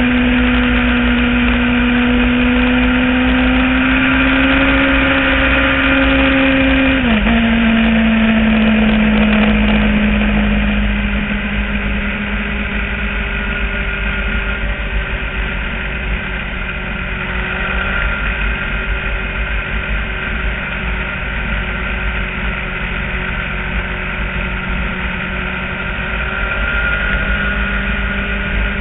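Motorcycle engine running steadily at road speed, its note climbing slowly, then dropping sharply about seven seconds in and carrying on lower, a little quieter after about ten seconds.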